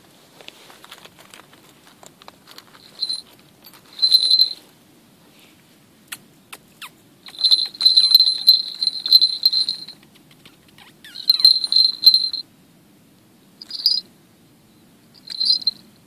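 Small brass falconry bell on a shikra jingling in repeated bursts as the hawk tugs at and plucks its quail kill. The longest run of jingling comes in the middle, with shorter jingles later and faint rustling clicks between them.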